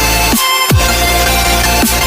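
Loud electronic dance music in a dubstep style, with deep bass notes that slide down in pitch, one about half a second in.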